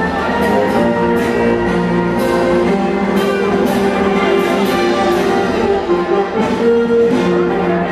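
Orchestral fireworks-show music with brass, playing loudly and steadily. Short sharp reports of fireworks launching and bursting recur through it.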